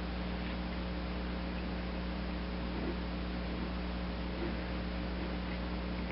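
Steady electrical hum and hiss, with a few faint ticks from the lathe compound slide's feed screw being wound back by hand.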